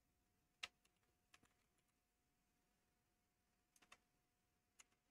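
A few faint, scattered computer keyboard keystrokes over near silence, with a faint steady hum behind them.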